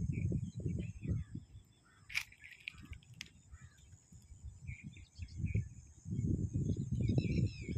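Wind buffeting the microphone in gusts, heaviest at the start and again from about six seconds in, with small birds chirping now and then. Two sharp clicks fall around two and three seconds in.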